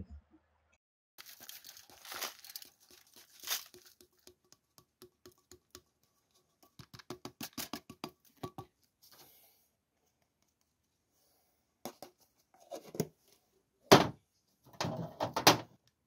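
A granular mixture of copper oxide, aluminium, tin granules and copper being poured from a tin can into a foil-lined fire brick: a soft hiss of running powder, then a long patter of small clicks as the grains and bits of metal drop in. Near the end, aluminium foil crinkles and there is one sharp knock.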